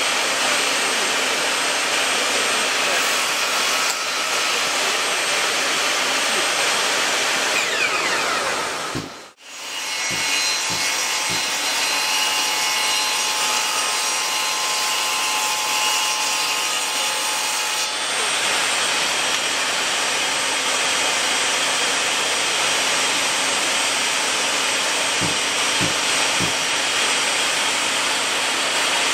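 Bosch GTS 10 XC table saw running, its blade cutting through wooden boards fed by hand. The steady noise cuts out abruptly for a moment about a third of the way in, then resumes.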